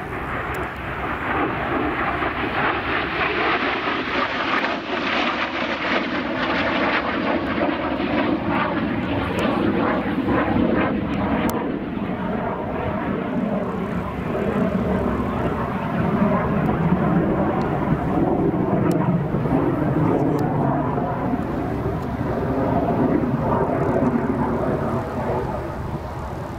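North American F-86 Sabre jet flying a display, its jet engine heard as a loud, continuous noise. The high hiss is strongest about five seconds in, then gives way to a deeper rumble as the jet climbs away.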